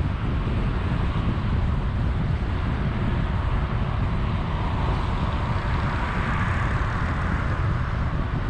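Car driving along an expressway at about 70 km/h: steady low road and tyre rumble mixed with wind noise. A brighter hiss swells from about five to eight seconds in.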